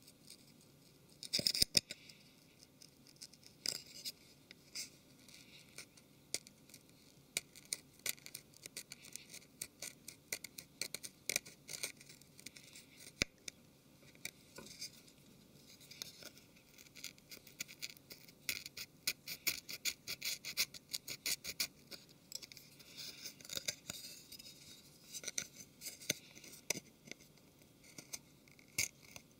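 A small pick and plastic tool scraping old screen adhesive off a phone's front frame: a run of faint, quick scratches and ticks, busiest about two-thirds of the way through.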